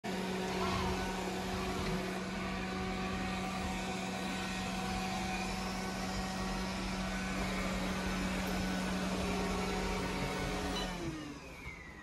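iHome AutoVac Eclipse robot vacuum running on a hardwood floor with a steady motor and brush hum. About eleven seconds in it winds down with a falling whine: it stops, which the owner says it does after about two minutes of running.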